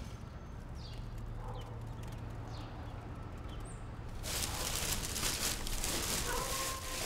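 Outdoor ambience with a low steady hum and a few faint bird chirps. About four seconds in it changes suddenly to the crinkle and rustle of plastic garbage bags being handled inside a dumpster, with a short squeak near the end.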